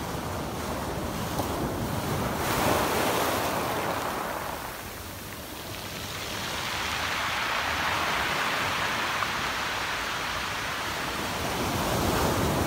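Sea waves breaking and washing up a shingle beach. The wash swells and falls back in slow surges, three times.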